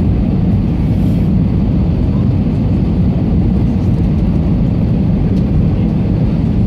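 Airbus A320 passenger-cabin noise on the landing approach: a steady low rumble of the engines and airflow, heard from a window seat.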